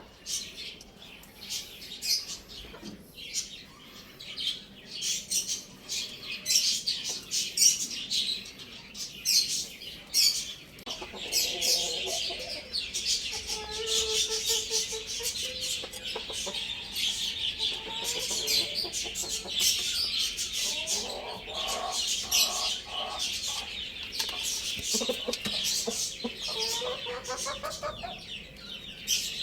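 Chickens clucking and calling in repeated pitched phrases, over a dense, continuous chorus of high chirping.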